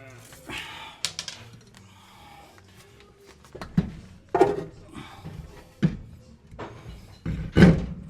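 Irregular clunks and knocks, about half a dozen, the loudest near the end, as a road wheel is handled and fitted onto a car's hub.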